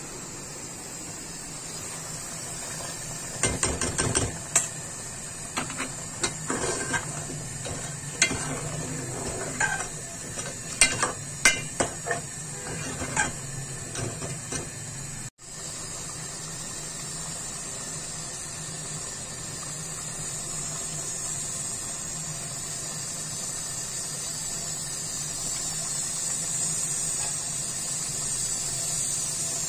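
A metal spoon clinks and scrapes against the cookware as meat curry is stirred. After a brief cut it gives way to a steady hiss of the pot cooking on the gas stove, growing a little louder near the end.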